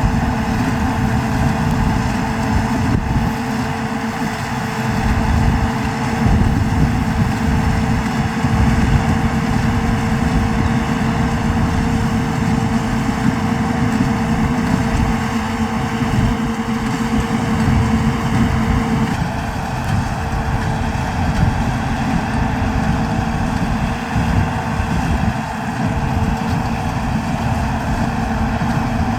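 New Holland TD110D tractor engine running steadily under load. A thin steady hum within it drops out about two-thirds of the way through.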